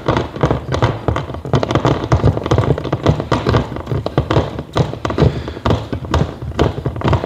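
Rapid, irregular clicking and tapping of screws being driven by hand with a screwdriver to fix a metal hose-holder bracket to a wall.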